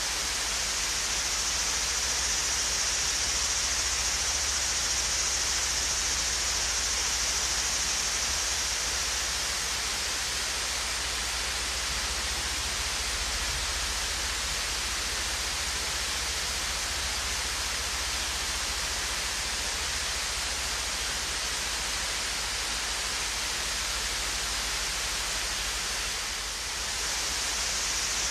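Swayze Falls, a gentle waterfall, splashing steadily: an even hiss of falling water, brightest in the high range, that eases slightly for a moment about 26 seconds in.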